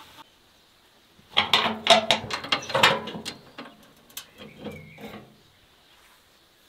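Steel barrel charcoal grill's lid being lifted open: a quick run of metal clanks and rattles from its hinges and latch, then a few lighter knocks and a short squeak.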